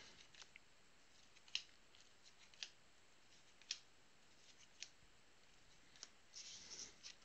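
Trading cards being flipped through by hand one at a time, a short crisp click about once a second, with a brief rustle of cards near the end.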